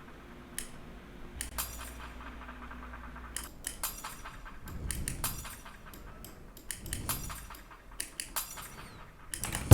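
Glass-break sound-effect sample playing quietly: scattered small clinks and tinkles of glass shards.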